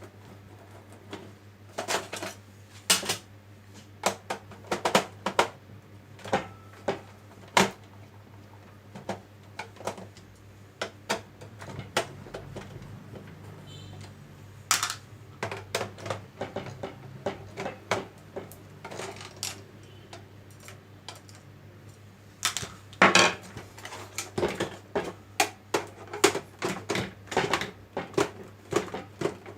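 Irregular clicks and knocks of hands and a screwdriver on the plastic case of an Epson EB-436W projector as it is taken apart, starting with the lamp, with a louder cluster of knocks a little past the middle. A steady low hum runs underneath.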